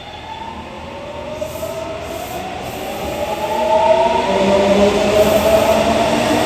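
A Nagoya Municipal Subway 6000 series train's original Toshiba GTO-VVVF inverter whining as the train accelerates away from the platform. Several tones rise in pitch together and grow louder along with the running noise of the cars. This is the equipment not yet replaced by the renewal.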